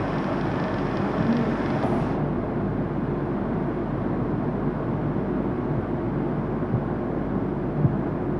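Steady drone of industrial plant machinery, a continuous noise with no breaks; a higher hiss drops away about two seconds in.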